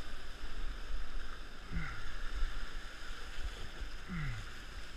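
Surf surging and washing around sea rocks, with wind rumbling on the microphone. Twice, about two seconds apart, a short low sound slides down in pitch.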